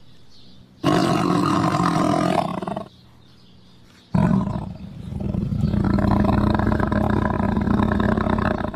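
Big cats roaring and growling as they wrestle in play, in two spells: one of about two seconds starting a second in, then a longer one starting about four seconds in.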